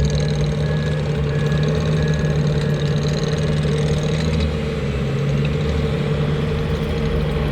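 Bobcat T650 skid steer's diesel engine running steadily, its backup alarm beeping during the first couple of seconds. The engine note dips briefly about halfway through, then recovers.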